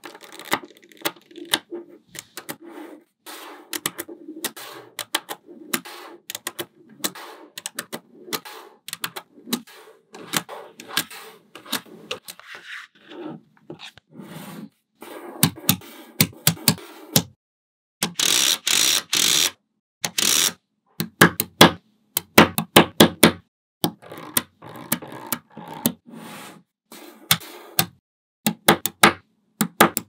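Small neodymium magnet balls clicking and snapping together as clusters are pressed onto a ball-built wall, a fast irregular run of sharp little clicks, with a louder, noisier stretch a little past the middle.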